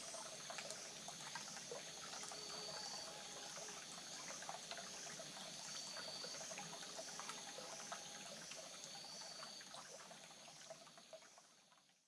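Faint trickle of a shallow stream over rocks, with small drips and ticks. A short, high call repeats about every three and a half seconds over it. The sound fades out near the end.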